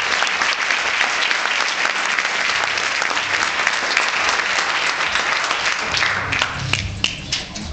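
Audience applauding, a dense, continuous clapping that dies away about six seconds in to a few scattered claps.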